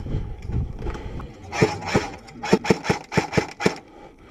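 Airsoft electric rifle (SCAR-L AEG) firing a quick string of semi-auto shots from inside a plywood bunker: about ten sharp cracks in two seconds, after a second or so of rustling movement.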